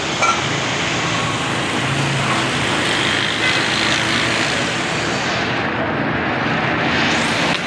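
Steady rushing hiss of a huge built-in cauldron of meat stock boiling hard while it is stirred with a long-handled ladle.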